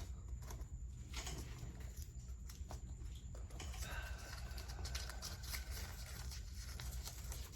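Quiet room with a steady low hum and faint scattered clicks and rustles of a folded paper slip being handled and opened.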